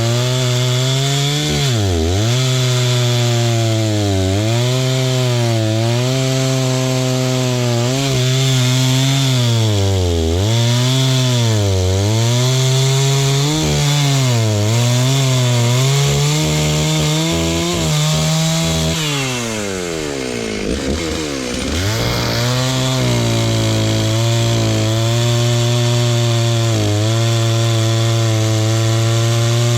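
Stihl chainsaw cutting wood, its engine pitch dipping and recovering every second or two as the chain bites under load. About twenty seconds in the engine drops to a low speed, then revs back up and runs steady at high speed.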